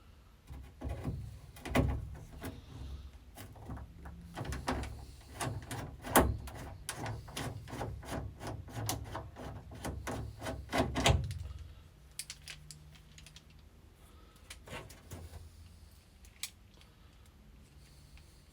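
Rapid clicking and clattering of small metal hardware being handled while rivet nuts are fitted. The clicks are dense for about the first eleven seconds, then thin out to a few scattered clicks.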